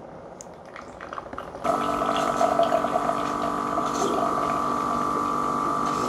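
Ninja PB041ST Pods & Grounds single-serve coffee maker brewing over ice: a faint trickle, then about one and a half seconds in its pump starts and hums steadily as coffee runs into the cup.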